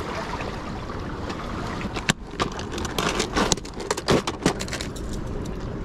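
Steady wind and water noise, then from about two seconds in a run of sharp clicks and rattles as a clear plastic lure box is handled and opened over a tackle box.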